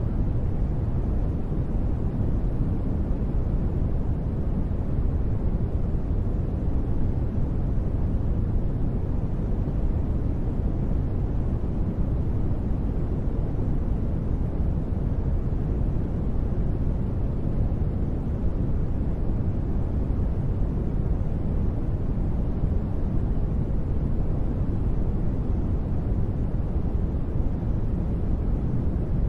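Steady, unchanging noise played for sleep, deep-toned, with most of its energy in the bass and little hiss.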